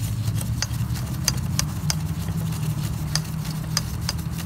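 A steady low, engine-like hum from an unseen machine in the background, with about a dozen light, irregular ticks and crinkles as a hand in a plastic bag spins a new oil filter onto its threaded mount.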